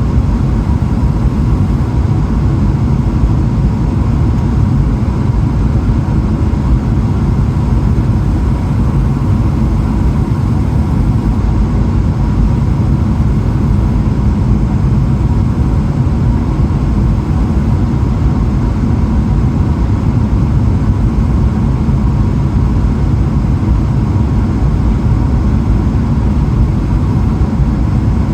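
Steady cabin roar of a Boeing 777-300ER airliner in flight: engine and airflow noise, deep and unchanging, with a faint steady whine above it.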